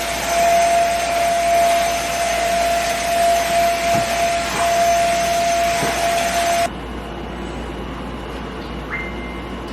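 Vacuum cleaner running with a steady whine, cutting off abruptly about two-thirds of the way through, leaving quieter room sound.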